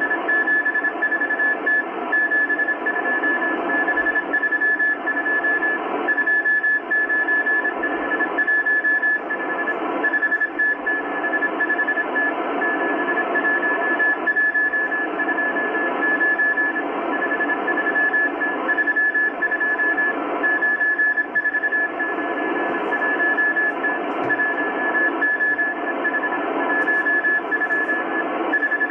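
Morse code from the M12 Russian spy station on 14951 kHz, heard through the speaker of a Kenwood R-1000 shortwave receiver: a single high beep keyed on and off in quick dots and dashes over constant static hiss. The listener takes it for a real coded message.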